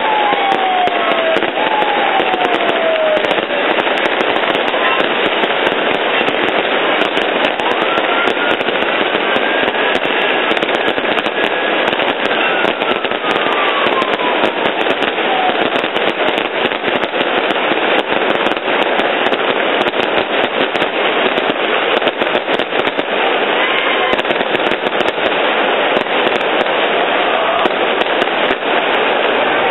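Dense, continuous crackling of firecrackers going off without a break, with a few falling whistles, the first ones at the very start.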